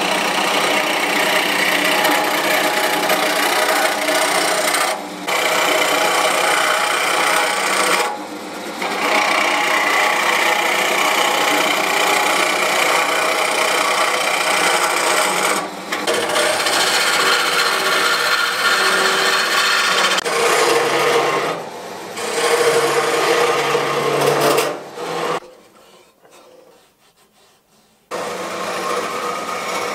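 Turning tool cutting into a wooden bowl blank spinning on a wood lathe: a continuous rasping, scraping cut, broken by a few short pauses as the tool is eased off. Near the end the cutting stops for a few seconds, then starts again.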